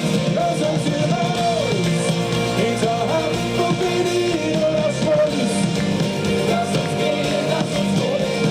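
Live rock band playing a song, with sung vocals over the band.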